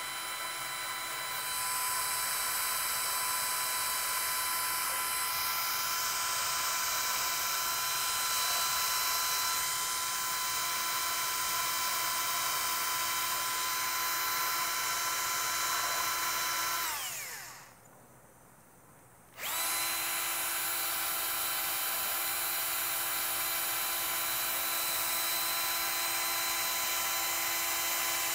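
Cordless drill spinning a yellow 80-grit 3M radial bristle disc against the end grain of a small wooden drawer pull, a steady high whine. About two-thirds of the way through it winds down in falling pitch and stops for about two seconds, then starts again abruptly at full speed.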